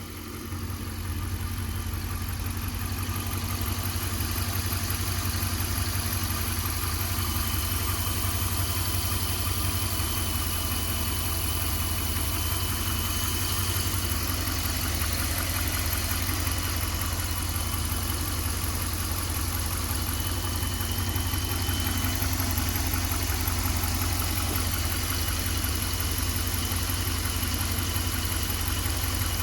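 Dodge Durango engine idling steadily, with a faint thin high whine joining about seven seconds in.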